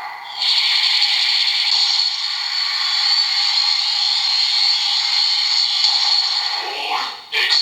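DX Ark Driver-Zero toy belt playing its punch finisher sound effect through its small built-in speaker: a thin, trebly effect with no bass that breaks into short choppy bursts near the end.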